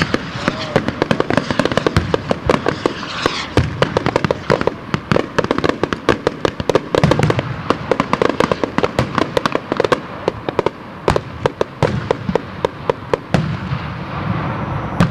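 Hand-made skyrocket fireworks bursting overhead: a dense run of rapid, irregular crackling pops that goes on for many seconds.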